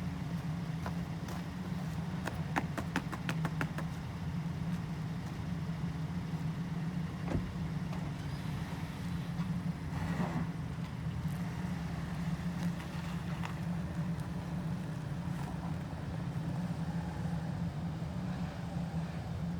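Car engine running with a steady low hum, with a quick run of clicks a few seconds in and a single knock about seven seconds in.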